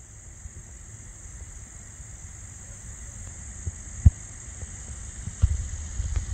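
A steady high-pitched insect chorus, over a low wind rumble on the microphone, with a few sharp low thumps, the loudest about four seconds in and another a second or so later.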